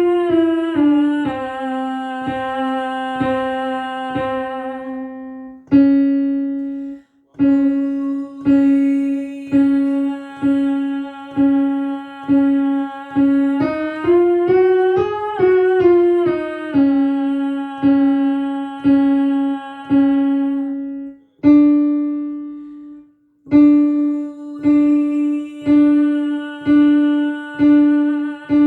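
Piano playing a vocal-exercise accompaniment: a chord repeated about twice a second on a held pitch, stepping up and back down a short scale about halfway through, with two brief pauses.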